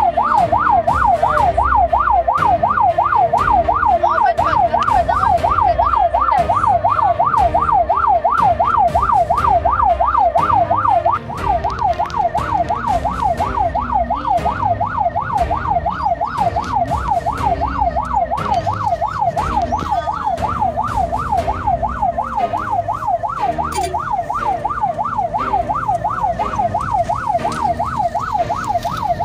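Ambulance siren in a fast yelp, its pitch sweeping up and down about three times a second without a break, heard from inside the cab over the low rumble of the engine and road.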